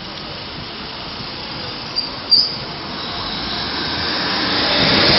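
Diesel multiple-unit passenger train approaching and rolling across a level crossing, its running noise building steadily over the last couple of seconds. There are two brief high-pitched squeals about two seconds in.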